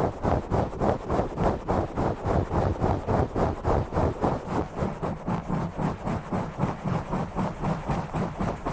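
Fast, rough scratching on a camera, in quick even strokes about three to four a second, dull and heavy in the low end.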